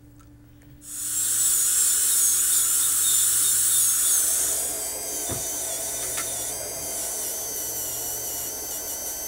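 Dental handpieces finishing and polishing fresh composite fillings after the bite check. A high-pitched air-turbine whine starts about a second in. About halfway through it gives way to a quieter, steadier slow-speed handpiece running a rubber polishing point.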